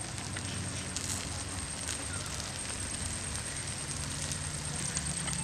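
Wood fire crackling in a clay stove under fish curry cooking in a banana leaf: scattered small pops over a steady hiss.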